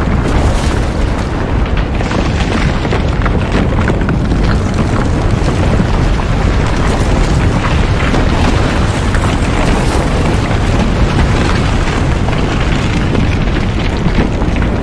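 Loud, steady deep rumble with dense crackling all through it, from a disaster-style sound effect, with music underneath.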